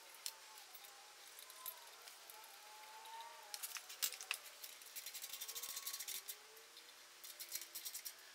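Faint small metallic clicks and rattles from a hand tool and screws being worked at a portable generator's alternator end cap. They come in a few short runs, with a quick string of ticks in the middle.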